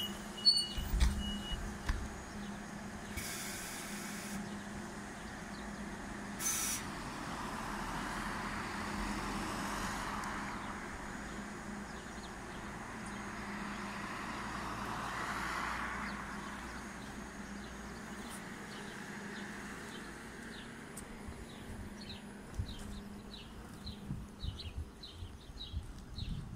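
Hydrogen fuel-cell trolleybus pulling away under electric drive: a steady low hum with a noisy whine that swells twice as it gathers speed. Two short hisses of compressed air come a few seconds in.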